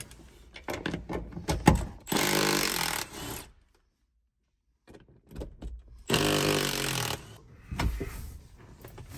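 Cordless impact driver running in two bursts of about a second each, a few seconds apart, loosening the Torx bolts that hold the seat to the floor. Light knocks and clicks of handling come before the first burst.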